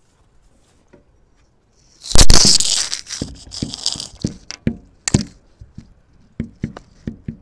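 Loud handling noise on a phone's microphone about two seconds in as the phone is moved from its filming spot, then a string of sharp crunches, like steps in snow.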